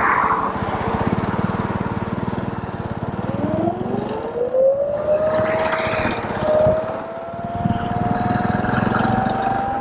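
Electric scooter's motor whining as it pulls away and gathers speed, the whine rising steeply in pitch from about three seconds in and then climbing slowly. Under it, a motorcycle engine riding just ahead and wind and road noise.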